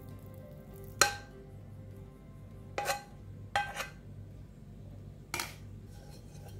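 A metal spoon scraping sticky date halwa out of a nonstick pan and knocking against the pan and a glass dish: four sharp clinks, the loudest about a second in.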